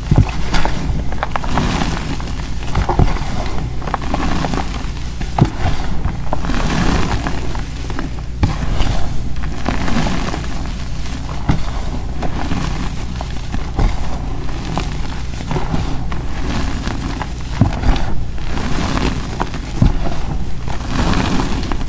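Hands squeezing and crumbling soft, powdery gym chalk close to the microphone: continuous soft crunching as clumps break apart, with many small crackles and dull thuds.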